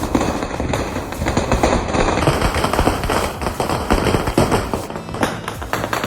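A 5000-wala string of firecrackers going off, its crackers bursting in a rapid, unbroken rattle of bangs.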